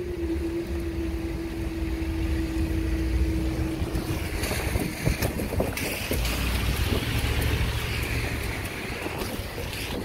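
Level crossing barriers rising: a steady hum from the barrier mechanism that stops about four and a half seconds in, once the booms are up. Wind buffets the microphone throughout.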